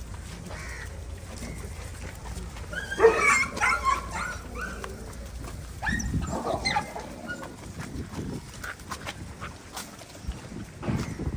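Street dogs barking in short bursts, about three seconds in and again around six seconds in.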